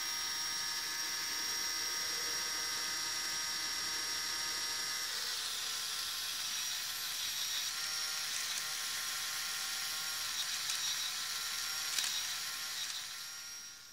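Small LEGO Power Functions electric motor driving a Technic winch through its gears, a steady whine as it reels in the cable. The tone shifts about five seconds in, a few clicks come near the end, and the motor winds down and stops just before the end.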